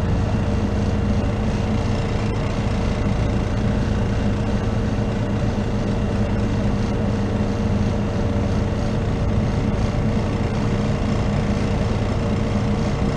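Old refrigeration condensing unit running steadily: the compressor hums and the condenser fan turns on a damaged blade that puts its motor out of balance.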